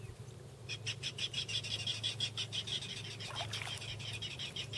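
Clapper rail (marsh hen) calling from the salt marsh: a long run of harsh, clacking notes, about six a second, starting about a second in.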